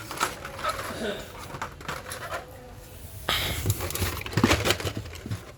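Hot Wheels cars in their blister-card packages being handled and set down: plastic and card clicking, rustling and knocking, busiest in the second half.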